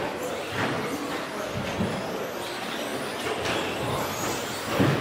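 Several 1/10-scale 2WD electric RC racing trucks with 10.5-turn brushless motors running around the track. Motors are whining and tyres are scrubbing, with a few short knocks along the way.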